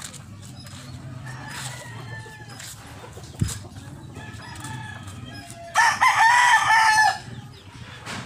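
Rooster crowing once, loud and a little over a second long, past the middle, with fainter rooster calls earlier on. A single sharp knock sounds about three seconds in.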